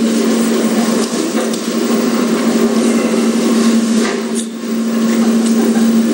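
A loud, steady low hum with a rough noisy wash over it, and a brief dip in level about four and a half seconds in.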